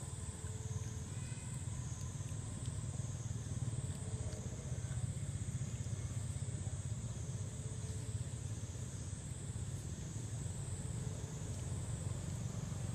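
Steady outdoor background: a constant low rumble under a high insect chorus that swells and fades about once a second.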